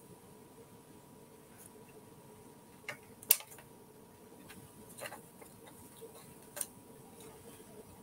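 A few short, soft taps and clicks of paper embellishments being handled and pressed onto a scrapbook page on a tabletop, the loudest a little past three seconds in, over faint room tone.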